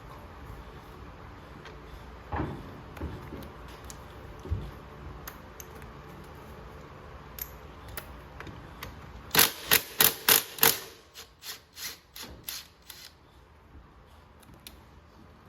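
Socket ratchet clicking on a 14 mm bolt during rear brake pad removal on a scooter: a few scattered knocks, then a quick run of about eight loud clicks around the middle, slowing into spaced clicks.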